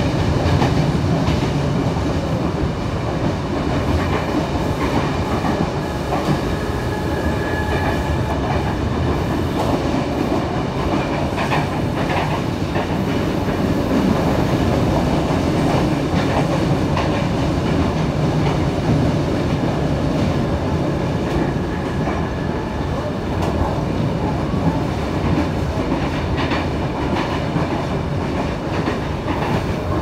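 Trensurb electric commuter train running at speed, heard on board: a steady rumble of wheels on rail, with a few sharp clacks from the wheels.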